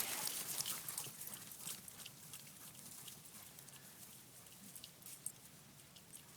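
Faint rustling with scattered light ticks, loudest at the start and fading away over about three seconds: dogs running off after a thrown ball.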